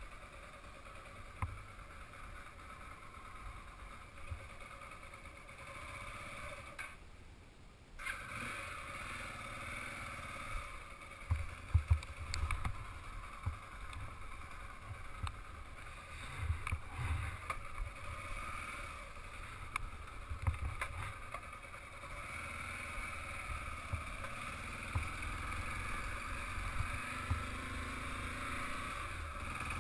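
Motorcycle engine running at low speed over a rough dirt track, with irregular thumps and knocks as it rides over bumps. The loudest knocks come about twelve seconds in, and all sound briefly dips out about seven seconds in.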